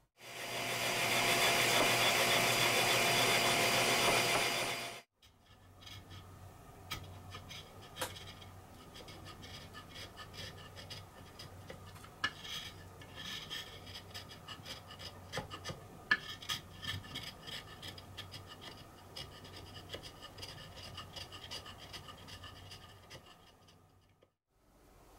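A loud steady whirring rush for the first five seconds, then hand sanding: an abrasive-faced block rubbed over the end of a wooden support to bring it down about half a millimetre flush with an aluminium extrusion. The sanding is irregular scratchy rubbing with occasional sharp clicks.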